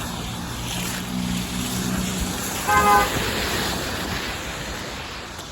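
Steady wash of rain and wet-street noise with wind on the microphone, a low hum from a vehicle in the first couple of seconds, and one short, loud pitched sound about three seconds in.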